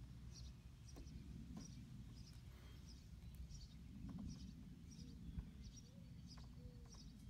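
Faint outdoor background: a low steady rumble with a small bird chirping repeatedly, a short high chirp about every half second.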